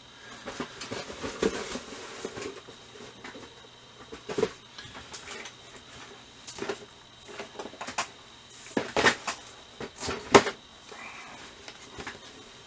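Model kit boxes and plastic parts being handled: scattered clicks, knocks and rustling, with the loudest knocks about 9 and 10 seconds in.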